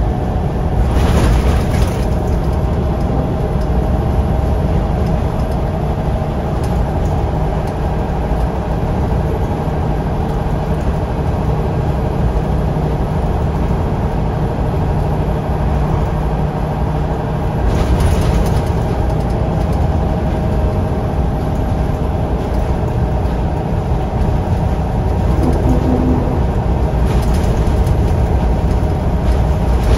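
Scania L94UB bus's rear-mounted 9-litre five-cylinder diesel engine running steadily, heard from the rear of the saloon, with three short hisses about a second in, around eighteen seconds in and near the end.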